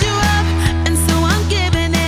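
Pop song with a steady drum beat and a sung vocal line.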